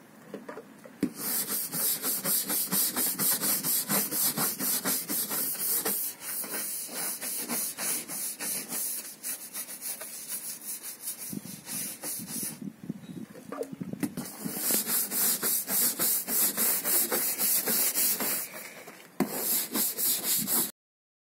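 Stiff-bristled hand scrub brush scrubbing a camper van's roof in quick repeated back-and-forth strokes, with short pauses near the start and about two-thirds of the way through, stopping abruptly near the end.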